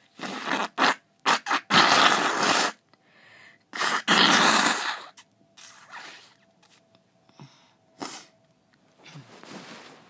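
A person blowing their nose forcefully in a series of noisy blasts: a few short ones at first, then two long, loud blows about two and four seconds in, followed by weaker short blows toward the end.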